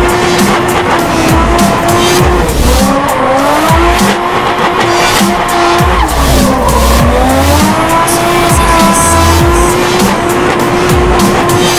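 Turbocharged RB25DE straight-six of a Nissan R32 Skyline held at high revs through a drift, the revs dipping and climbing back twice, with tyres squealing. Background music plays under it.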